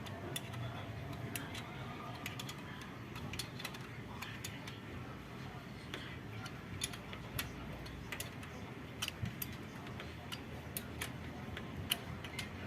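Irregular small metallic clicks and ticks of a screwdriver working a Phillips screw into the cover of a motorcycle engine's cam chain tensioner adjuster, closing it up.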